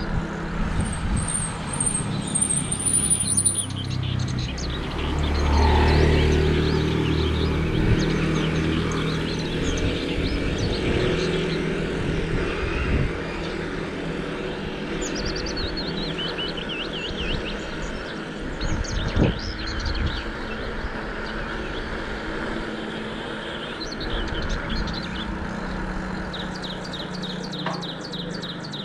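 Small birds chirping in repeated runs of quick falling notes over a steady low rumble of road noise, with a vehicle passing about five to seven seconds in.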